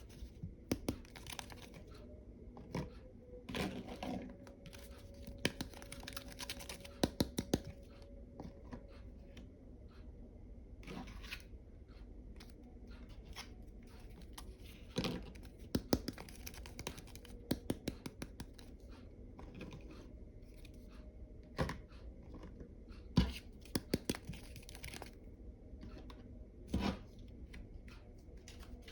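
Packaging being torn and crinkled, with irregular sharp clicks and taps of small hard items being handled.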